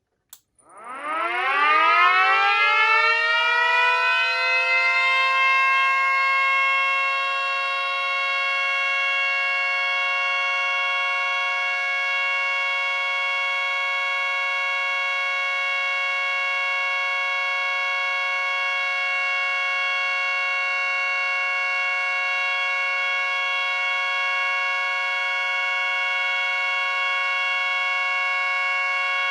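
Three Snowcube single-tone mini sirens (an 8-port Model 7, a 9-port Banshee and a 12-port STH-10) winding up together, switched on about half a second in. Their pitch rises over the first few seconds, then they hold a steady alert tone, several notes sounding at once.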